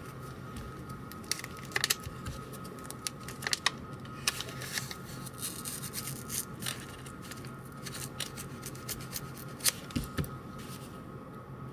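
Folding knife blade cutting and scraping through paper or cardboard: irregular scratchy strokes mixed with sharp little clicks, over a faint steady hum.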